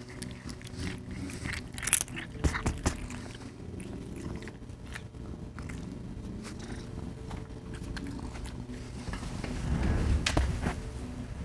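Domestic cat purring right at the microphone, a steady low rumble, with sharp knocks and rubbing on the mic as the cat pushes its head against it, loudest about two seconds in and again near the end.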